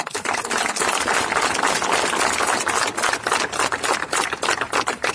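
Crowd applauding, many hands clapping at once; it starts suddenly.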